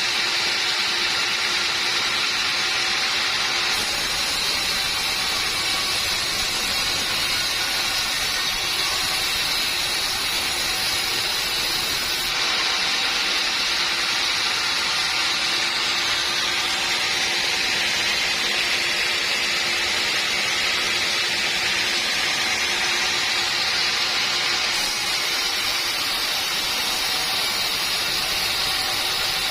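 Sawmill saw running steadily, cutting through teak: a loud, even hiss with a faint steady hum underneath, its tone shifting abruptly a few times.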